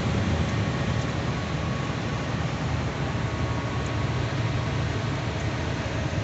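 Heavy truck cruising at highway speed, heard from inside its cab: a steady low rumble of engine and road noise.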